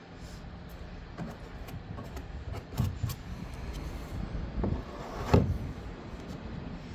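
A plastic rod holder being pushed and worked into a freshly cut hole in a kayak's plastic hull: irregular knocks and scrapes, the loudest knock about five seconds in. It does not go in yet: the hole is too tight.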